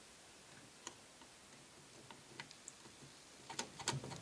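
Faint, scattered light clicks and taps from the side cover of a Warner three-speed transmission being worked onto the case to seat its shift forks on the synchros, with a quick cluster of clicks near the end.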